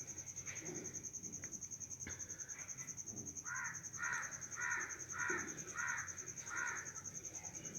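A crow cawing about six times in a steady series, starting about three and a half seconds in, over a continuous high-pitched cricket trill.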